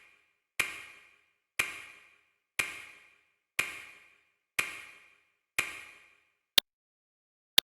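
Countdown timer tick sound effect, one sharp tick a second. The first six ring briefly and fade; the last two are short, dry clicks.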